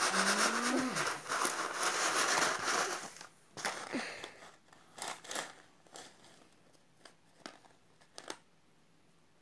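Plastic bingo counters clattering in a cardboard tray as a hand stirs through them to mix them for a draw: a dense rattle for about three seconds, then scattered single clicks that die away.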